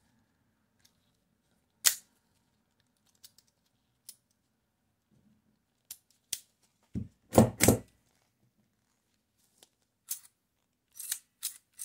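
Sharp metal clicks and knocks from handling an automatic numbering stamp: a single click about two seconds in, a cluster of three heavy knocks around the middle, and a quick run of clicks near the end.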